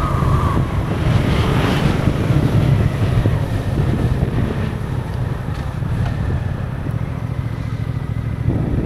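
Suzuki GSX-8S motorcycle being ridden, its parallel-twin engine running steadily beneath a low rumble of wind on the microphone.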